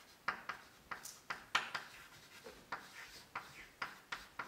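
Chalk tapping and scraping on a blackboard as words are written by hand: a run of short, sharp strokes, about four a second.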